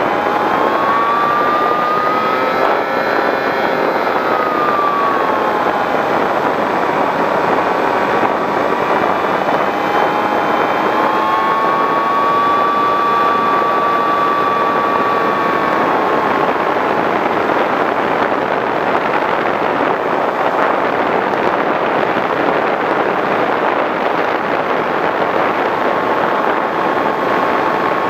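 Skywalker model plane's 910kv brushless electric motor and propeller whining, its pitch rising and falling several times, over loud wind rush on the onboard camera's microphone.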